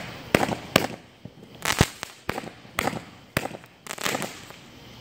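Aerial consumer fireworks going off: a rapid, irregular string of about ten sharp bangs and pops over five seconds, with crackling between the reports.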